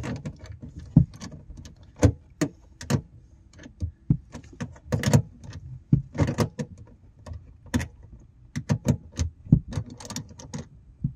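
Hand ratchet with a 10 mm socket tightening the tail light housing's nuts: irregular metallic clicks and clinks, a few per second.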